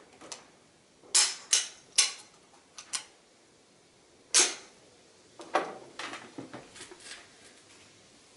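Mauser C96 pistol being loaded from a stripper clip: several sharp metallic clicks as cartridges are pressed down into the magazine, then the loudest clack about four and a half seconds in as the bolt closes. Lighter clicks and knocks of handling follow.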